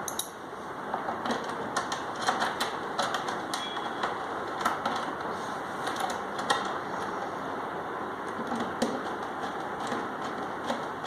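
Irregular clicks and light taps of small metal TV wall-mount clamps and their screws being handled and fitted onto the back of a TV, over a steady background hiss.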